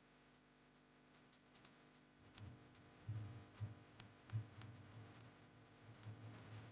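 Faint, irregular detent clicks from the damping adjuster of a WP XPLOR motorcycle rear shock as it is turned click by click to count its settings, with dull low knocks of handling from about two seconds in.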